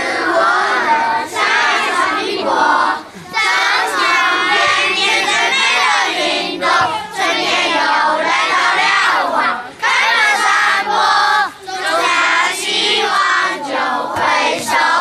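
A group of children singing together loudly, in short phrases with brief breaks between lines.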